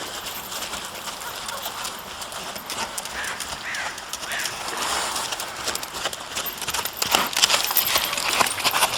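Hoofbeats of ridden Rocky Mountain Horses, a gaited breed, in an irregular clip-clop that grows louder and denser about seven seconds in.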